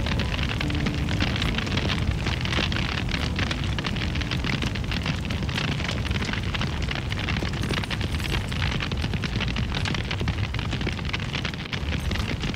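A large fire burning: a steady rushing noise dense with fine crackling.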